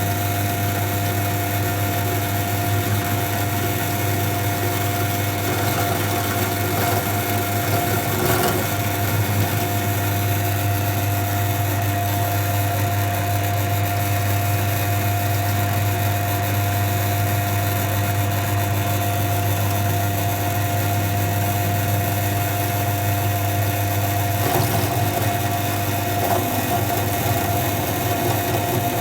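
ZJ4113 bench drill press running steadily with a constant motor hum and whine while its 6 mm bit drills through a bicycle pedal crank arm.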